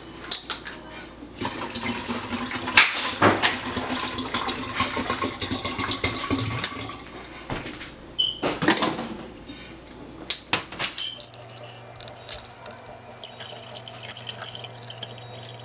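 Water poured from small plastic water bottles into a large plastic water jug: a long splashing pour, then a shorter one, followed by a quieter stretch with light plastic clicks as the bottles are handled.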